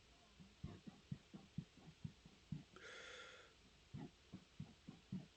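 A man gulping down air, a run of faint soft gulps at about three to four a second, with a short breath about three seconds in. He is swallowing air to bring it back up as a burp.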